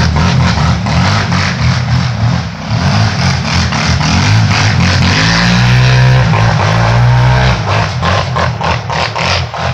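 Quad (ATV) engine revving and running hard as the quad spins circles on the frozen yard. The pitch rises and falls, then holds steady at a high rev for a couple of seconds past the middle.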